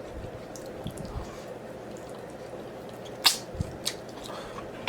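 Close-miked chewing with wet mouth sounds and a few sharp smacks, the loudest about three seconds in.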